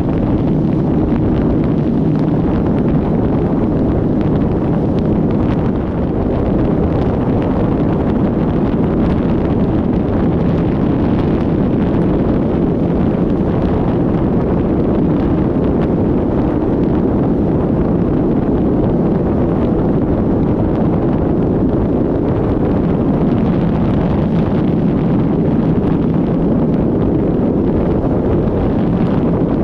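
Heavy wind noise rushing over the microphone on a Suzuki Hayabusa at road speed, steady throughout with a brief dip about six seconds in. The stock exhaust is so quiet that the engine is barely heard, a faint steady hum beneath the wind.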